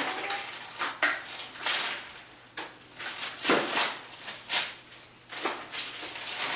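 Gift wrapping paper being torn and crinkled by hand: a series of irregular rips and rustles.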